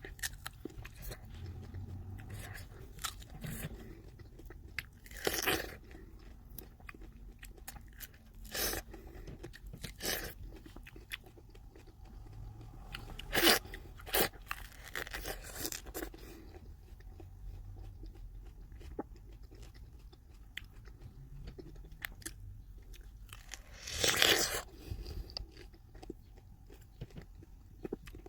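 A person biting and chewing fresh apricots close to the microphone: a steady run of small mouth clicks with a handful of louder bites, the loudest about halfway through and again near the end.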